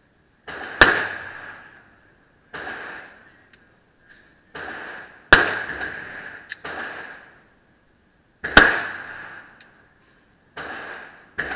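Gunshots from a 9mm Glock 19 pistol on an indoor range, each followed by reverberation. Three loud, sharp shots come about a second in, about five seconds in and just past eight seconds, with several softer, duller shots between them.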